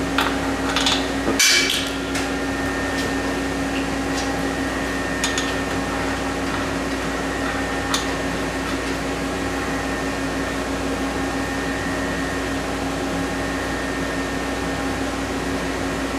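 A few light metallic clinks in the first second and a half, the loudest about a second and a half in, as the nut and cap are taken off the ball joint pin. After that there is only a steady shop hum with a constant tone.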